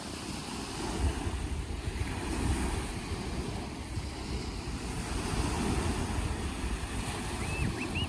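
Small waves breaking and washing up on the shore in steady surf, with wind rumbling on the microphone.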